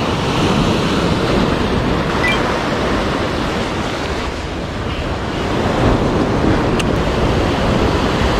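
Sea waves breaking and washing over a rocky shore in a steady loud surge, with wind buffeting the microphone.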